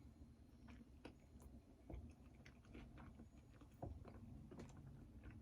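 Faint chewing of a vegetable pizza close to the microphone, with soft, irregular mouth clicks.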